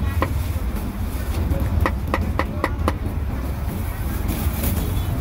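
Steel meat cleaver chopping roast pork on a wooden chopping block: one chop at the start, then a run of five quick chops, about four a second, around two seconds in, over a steady low rumble.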